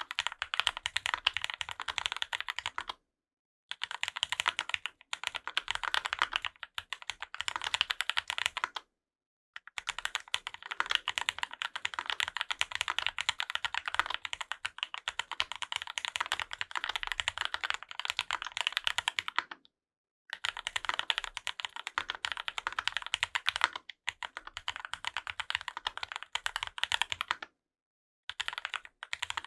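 Fast typing on a custom mechanical keyboard with Krytox-lubed Gateron Ink Black V2 linear switches, GMK keycaps and an aluminium plate with foam dampening: a dense run of keystroke clacks, broken by four brief pauses.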